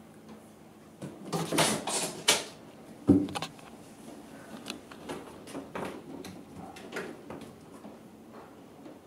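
A cat jumping into an empty bathtub: a few seconds of scraping and scrabbling, then a single loud thud about three seconds in as it lands, followed by light taps and clicks of its paws on the tub.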